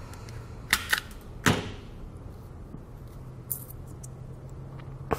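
Sharp clicks of a hand wire stripper closing on a wire and pulling off its insulation: two quick clicks just under a second in, a third about half a second later, over a faint steady hum.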